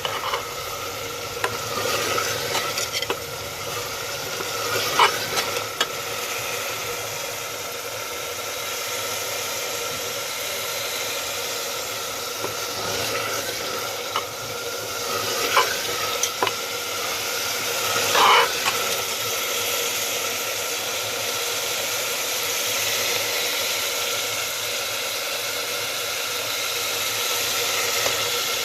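Soybean keema and potato curry sizzling in a pan as it is stirred, with a spoon knocking against the pan a few times.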